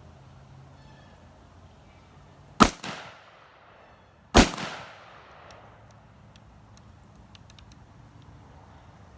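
Two AR-15 rifle shots fired at a target about two seconds apart, each sharp crack followed by a quieter echo.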